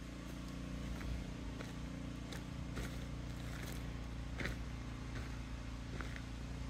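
An engine running steadily with an even low hum, with a few faint footsteps crunching on dry dirt and twigs.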